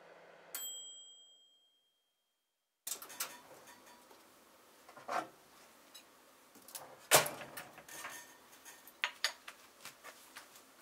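A single bell-like ding that rings out and fades within a second, then, after a short silence, kitchen handling sounds: scattered knocks and clinks of things being moved and set down, the sharpest knock about seven seconds in.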